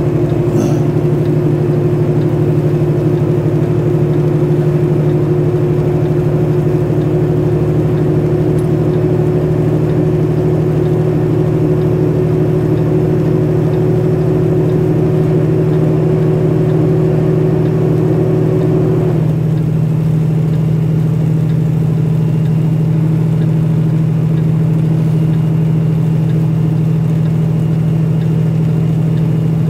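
Tanker truck's diesel engine running steadily under way. A higher steady hum over the engine note stops about nineteen seconds in, and the sound turns duller after that.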